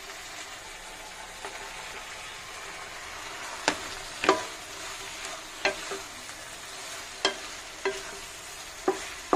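Masala sizzling in a nonstick pan while a wooden spatula stirs in fried brinjal and potato pieces. From about three and a half seconds in, the spatula knocks and scrapes against the pan about six times.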